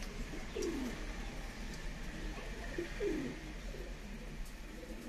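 Domestic pigeon cooing: two low coo phrases about two and a half seconds apart, each a short note followed by a longer falling coo.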